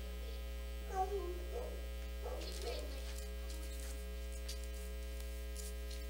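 Steady low electrical hum, with a few short, faint pitched sounds about one and two and a half seconds in.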